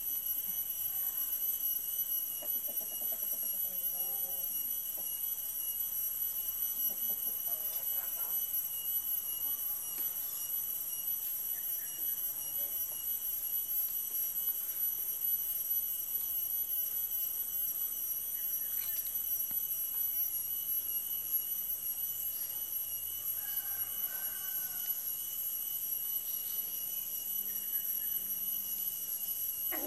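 A steady high-pitched ringing of several tones at once, unchanging throughout.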